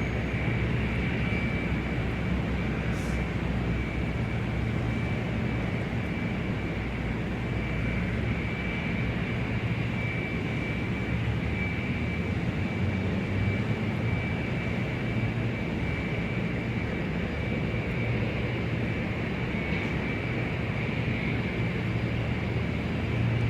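Large-airport ambience dominated by steady aircraft engine noise: a constant high whine over a low rumble, with no rise or fall in pitch.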